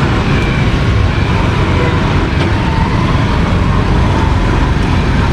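Steady street-market noise dominated by a constant low rumble of road traffic, with faint voices in the background.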